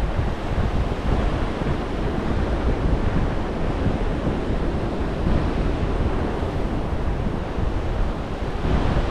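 Surf washing onto a sandy beach, heard as a steady rush, with wind noise on the microphone.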